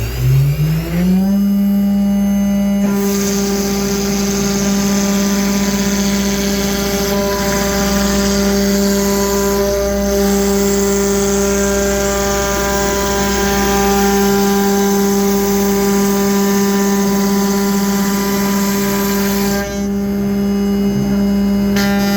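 The CNC router's 10 HP Colombo spindle spinning up, its whine rising in pitch over about the first second. It then runs steadily at speed. A hiss joins about three seconds in and stops a few seconds before the end.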